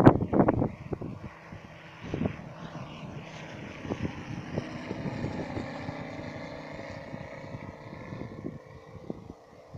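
Stearman biplane flying past, its engine and propeller a faint steady drone whose pitch falls slowly as it goes by. Wind buffets the microphone for a moment at the start.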